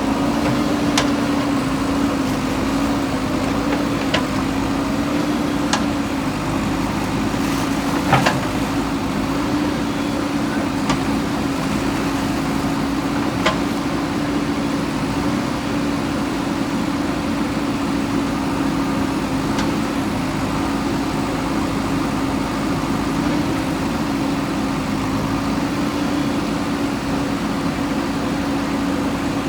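JCB backhoe loader's diesel engine running steadily under work, with a steady hum that wavers slightly. A few sharp knocks stand out, the loudest about eight seconds in.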